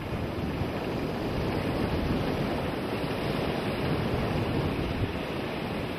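Ocean surf breaking and washing in the shore break: a steady rushing noise.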